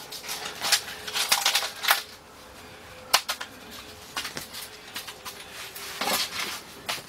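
Small black plastic plant pots being handled and knocked while repotting: light clacks and rustling, with one sharp knock about three seconds in.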